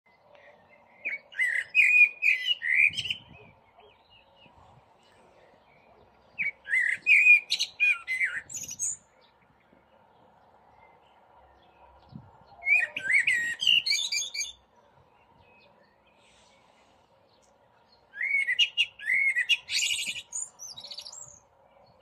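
Common blackbird (Turdus merula) singing: four separate fluting phrases several seconds apart, each ending in a higher, squeakier twitter. A male's spring song, sung to attract a mate.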